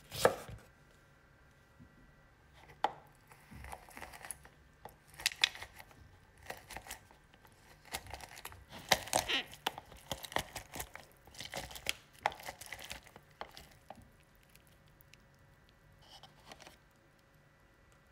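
A knife cuts through a lemon and strikes a wooden cutting board with one sharp knock at the start. Then come irregular clusters of scraping, squeaking and clicking as lemon halves are pressed and twisted on a plastic hand citrus juicer, thinning out near the end.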